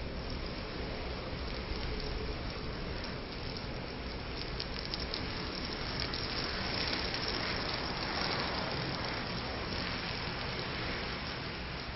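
Hundreds of matches burning together in a large blaze: a steady rushing hiss with dense crackling, busiest in the middle.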